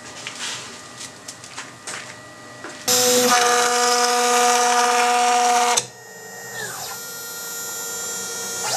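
A few light clicks and taps, then about three seconds in the CNC router's spindle suddenly whines loudly as it mills 10 mm acrylic. The whine cuts off sharply about three seconds later, and a quieter whine follows that falls in pitch and rises again near the end.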